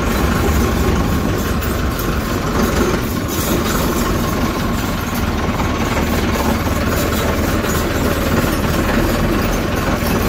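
Massey Ferguson 385 tractor's four-cylinder diesel engine running steadily as the tractor is driven slowly, heard from the driver's seat.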